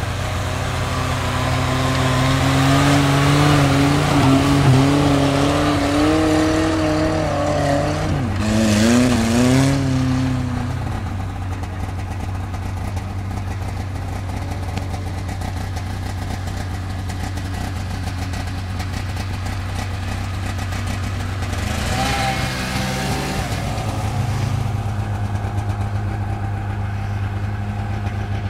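Small Suzuki 4x4's engine revving under load as it drives through snow and climbs a steep bank. Its pitch rises and falls through the first ten seconds, settles to a steadier drone, then surges again a little past twenty seconds.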